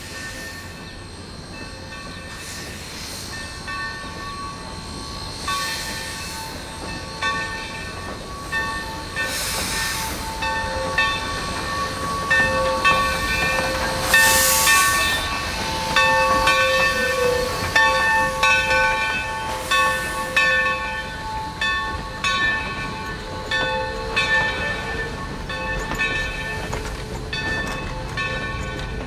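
China-built 2-8-2 steam locomotive 3025 pulling its train of coaches past at low speed. A rising rumble of the engine and wheels runs under two loud bursts of steam hiss about ten and fifteen seconds in, and high squealing tones come and go as the locomotive and coaches pass.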